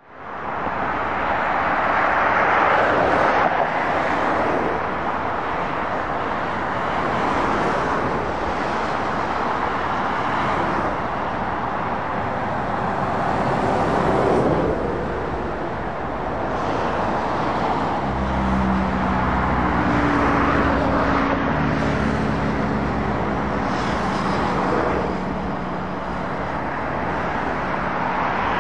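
Motorway traffic passing: tyre noise of lorries and cars rising and fading as each vehicle goes by. About two-thirds of the way in, the steady low drone of a heavy lorry's diesel engine joins the tyre noise and carries on to the end.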